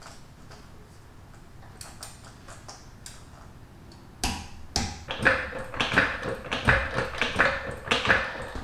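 Ratchet of a click-type torque wrench ticking as it tightens the pad retaining pin on a motorcycle's front brake caliper. A few faint ticks at first, then from about halfway a louder run of quick metallic clicks and taps, about three a second, with a faint ring.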